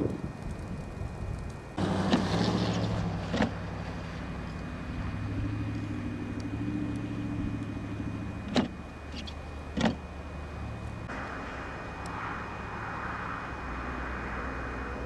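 Interstate traffic on a snowpacked highway: semi-trucks going by with a low, steady engine drone, and a rushing tyre hiss that swells about two-thirds of the way through. A few sharp clicks break in along the way.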